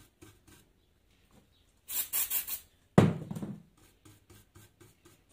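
Aerosol cleaning spray hissing in a few quick pulses about two seconds in, washing flux off a freshly soldered circuit board. A sudden knock follows about a second later, then light rubbing strokes, about five a second.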